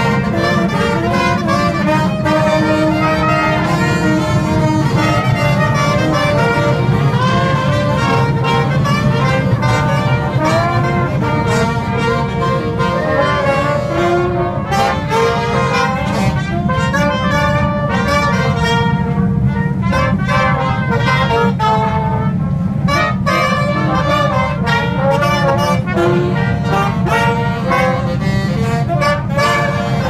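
Brass band of trumpets, saxophone and trombone playing a tune together inside a subway car, over a steady low rumble.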